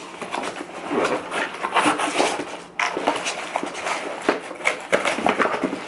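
Rustling and scraping of the packaging as a keyboard is pulled out of its cardboard box, with many small clicks and knocks, briefly quieter about three seconds in.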